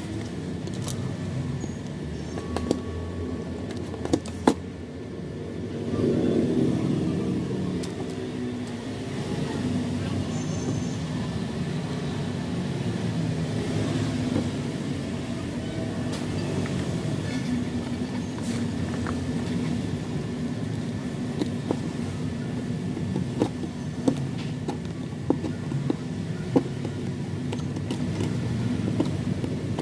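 Scattered sharp clicks and snaps of a utility knife and scissors cutting wooden ice cream sticks, coming in small clusters, over a steady low background rumble.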